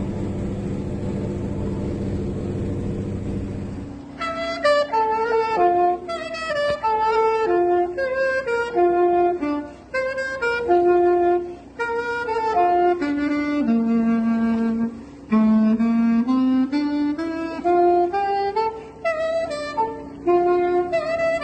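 A steady low mechanical hum for about four seconds, then background music: a saxophone playing a melody of separate held notes.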